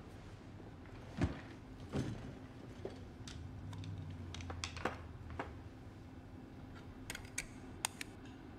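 Scattered light clicks and taps from a laboratory microscope being handled and adjusted, over a low steady hum.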